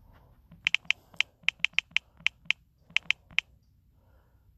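Quick run of short, sharp taps on a smartphone's on-screen keyboard, about fourteen in under three seconds, as a search query is deleted key by key and retyped.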